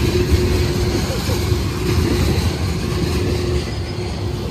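Freight train cars, tank cars followed by empty well cars, rolling past with a steady heavy rumble of wheels on rail and a thin whine that breaks off now and then.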